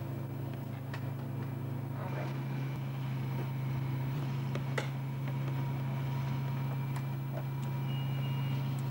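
A small scooter engine idling with a steady, even hum, with a few short clicks over it.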